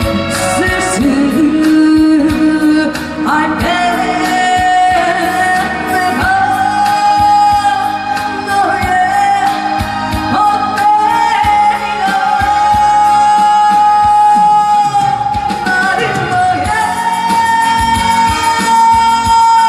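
A singer belting long, held high notes over a backing track with a steady beat.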